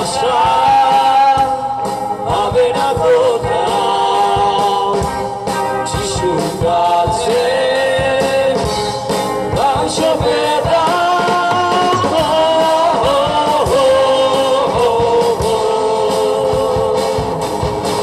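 Live rock-style band playing a Bengali Christian worship song: a male vocalist sings a gliding melody over drums, electric guitar, bass and keyboard.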